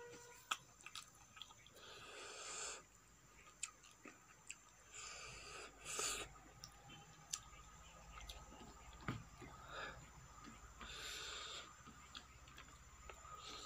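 Close-miked mouth sounds of a person eating rice and vegetable curry by hand: soft chewing with sharp clicks and lip smacks, and three short breathy hisses spread through.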